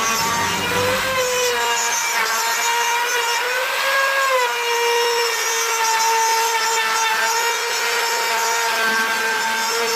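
Circular saw mounted under a homemade saw table, running and cutting wood: a steady high motor whine whose pitch rises slightly and then settles a little lower about four seconds in.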